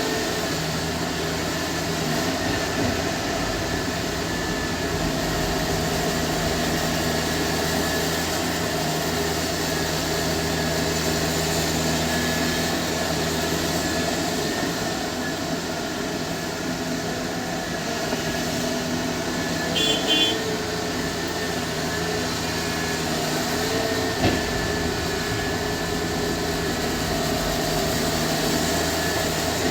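Heavy diesel earthmoving machinery, a Volvo excavator and dump truck, running with a steady engine drone while loading soil. A brief high chirp about twenty seconds in and a single knock a few seconds later.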